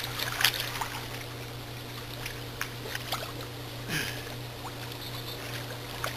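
Pool water splashing and lapping as swimmers move through it, with sharper splashes about half a second in and again near four seconds, over a steady low hum.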